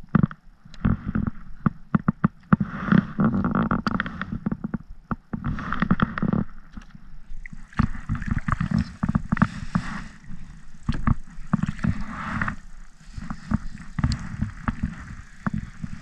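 Handling noise in a kayak: the rod, reel and jacket knock and rub close to the camera in irregular clicks and scrapes, with some water gurgling against the hull.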